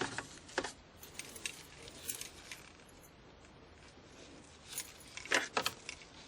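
A large bunch of keys on a key ring jangling and clinking in three short bouts, the loudest about five seconds in.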